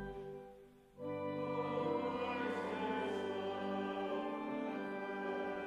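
Slow classical music in long sustained chords. A held chord fades away, and about a second in a new chord swells in and holds, with a choir-like or sung quality.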